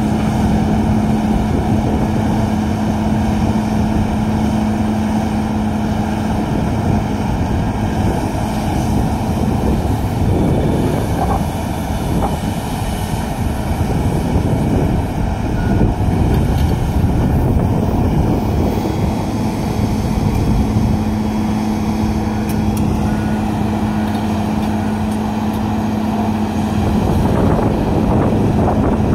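Heavy diesel engines of a Komatsu PC1250 hydraulic excavator and a Komatsu HD465 dump truck running under work while the excavator loads the truck. The steady drone fades for several seconds midway and then returns.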